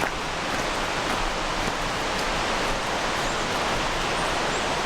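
Steady rushing of running water from a mountain stream, an even hiss that holds at one level.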